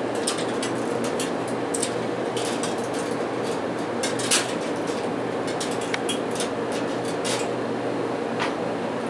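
Steady air-handling hum with scattered light clicks and rustles as twist-on wire nuts are unscrewed from a fluorescent light ballast's wires, one sharper click about four seconds in.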